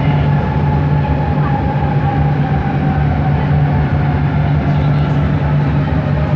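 Bombardier Innovia ART 200 metro train running, its linear induction motor giving a steady low hum with a whine that falls slightly in pitch. This is the motor noise singled out as weird on this car.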